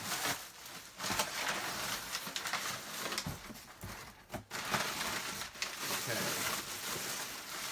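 Packing material rustling and crinkling as parts are pulled out of a shipping box by hand, in uneven bursts.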